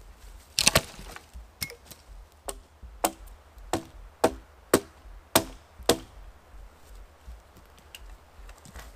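Dry wooden pole hitting the forest floor, then a run of about eight hard wooden knocks, roughly two a second, each with a short hollow ring through the pole.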